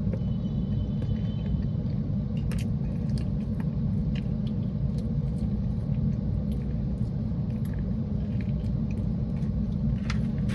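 Steady low rumble inside a car cabin, with a few faint clicks and taps from eating.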